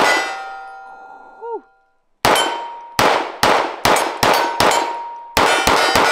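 Taran Tactical Sand Viper, a 9mm 2011 pistol with a ported barrel, fired in fast strings of shots, each followed by a metallic ringing. One shot rings out at the start, then after a brief gap come two quick strings of about six and four shots.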